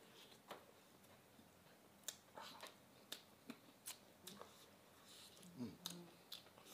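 Faint sounds of people eating with chopsticks: scattered sharp clicks and smacks of chewing and chopsticks tapping, with a brief low hum near the end.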